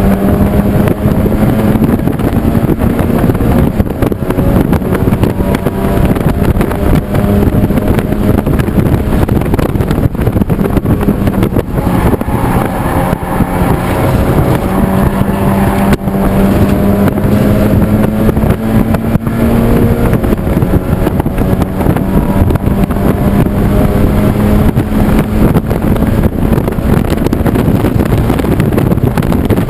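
Race car's engine heard from inside its cockpit, running hard at high revs with its pitch easing up and down gently through the corners and a few brief dips, over steady wind and road noise.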